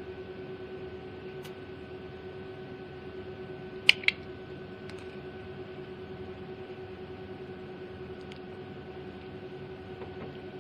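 Steady electrical hum from the cryolipolysis slimming beauty machine running, with two sharp clicks about four seconds in.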